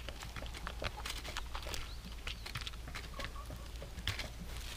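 A cat scratching a fallen log, its claws raking the dry wood in a run of irregular, scratchy strokes.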